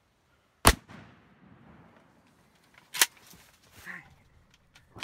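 Two shotgun shots about two seconds apart, each a sudden sharp bang with a short fading tail.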